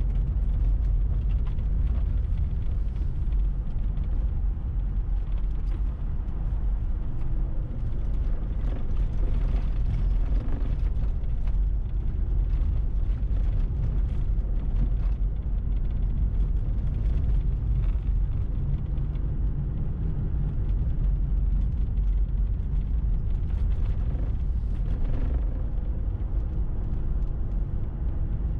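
Car driving on a packed-snow road at about 35–40 km/h: a steady low rumble of tyres and engine, with faint scattered clicks.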